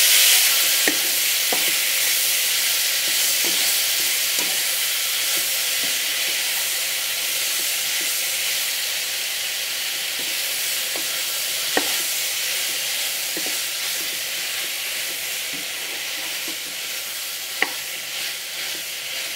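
Chopped ripe jackfruit sizzling in ghee in a hot wok while being stirred with a spatula, as the fruit's juice cooks off. The sizzle is loudest at first and slowly dies down, with a few sharp scrapes of the spatula against the pan.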